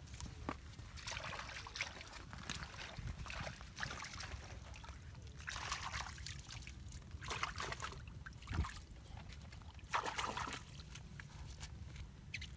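Hands splashing and sloshing in muddy water, in several short bursts.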